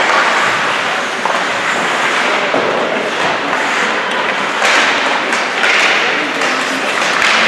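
Ice hockey game noise in an arena: a steady, loud rush of sound with a few scattered knocks, swelling louder several times in the second half.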